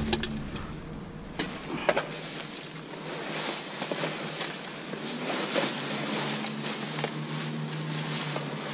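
Plastic rubbish bags and crushed plastic bottles rustling and crinkling as gloved hands rummage through dumpster rubbish, with a few sharp clicks and knocks in the first two seconds. A faint low hum comes in later.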